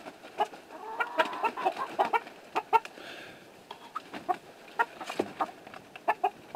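A small flock of chickens clucking in short calls, with many short, sharp taps and knocks among the calls.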